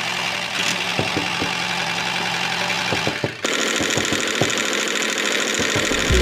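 A motor running steadily, with irregular clicks through it. The sound changes abruptly about three and a half seconds in.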